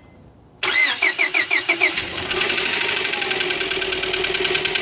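Honda H22A4 four-cylinder engine in a 2001 Honda Prelude being cranked by the starter, a run of about six rapid pulses, then catching about two seconds in and settling into a steady run with a fast, even knock. The owner takes the knock for a possible rod knock or a loose wrist pin.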